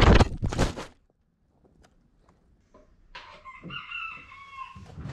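Loud wind rush and buffeting as the camera is thrown through the air, cutting off about a second in. After a short quiet, a rooster crows once, a call of nearly two seconds.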